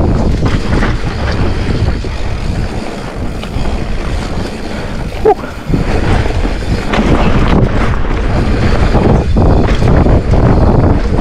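Wind rushing over the camera microphone of a mountain bike riding fast downhill, with the bike's tyres and frame rattling over the trail and a sharp knock about five seconds in.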